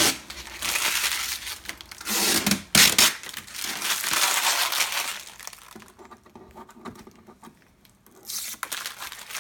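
Protective plastic film being peeled off a resin 3D printer's plastic case and crinkled, in several rasping pulls of about a second each, the loudest about three seconds in, with another pull near the end.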